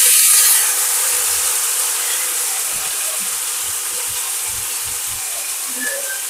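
Boiled green gram tipped into a pan of hot oil with tempered mustard seeds and spices, sizzling loudly at first and then slowly dying down, with a few soft knocks midway.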